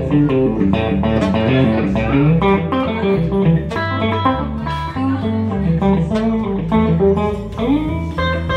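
Live band instrumental break: a Stratocaster-style electric guitar playing lead lines over a steady bass line.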